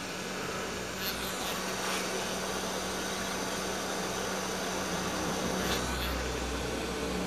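Hot-air rework station blowing steadily with a low hum while it reflows the solder on a surface-mount capacitor. A few faint clicks come about one, two and six seconds in.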